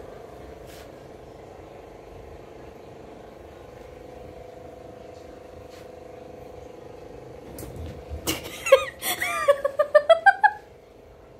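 A cat giving a quick run of short, rising chirping calls, about five a second, over a steady low hum, with a few knocks at the start of the run.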